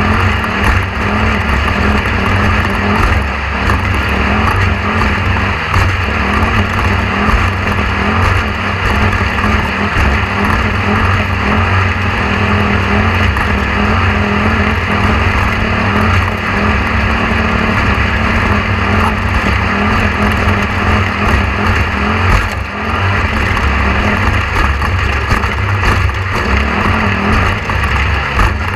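Steady, loud mechanical drone with a constant low hum and several held tones.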